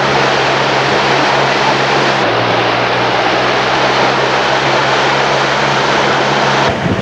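Steady engine drone with a low hum and a hiss, shifting slightly in pitch about two seconds in and cutting off abruptly near the end.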